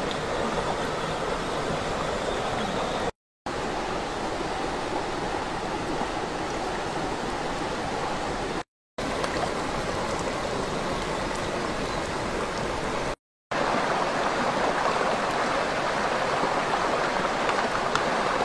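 Steady rushing of a rocky stream flowing, broken three times by brief dropouts to silence.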